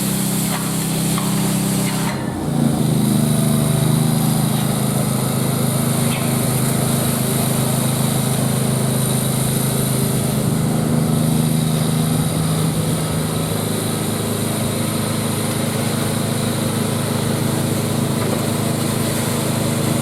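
Small engine of concreting equipment running steadily, its note rising slightly about two seconds in.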